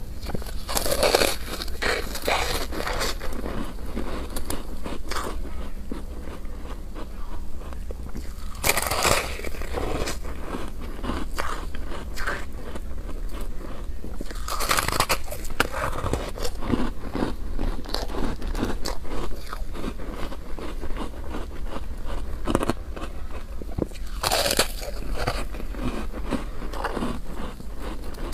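Close-miked ice eating: bites into a soft, frosty block of freezer ice and continuous crunchy chewing. Four louder bites come roughly every six to nine seconds, over a steady low hum.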